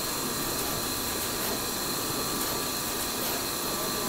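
SMT pick-and-place machine running: a steady mechanical whir and hiss with a thin high tone and a few faint clicks as the placement head moves over the tape feeders.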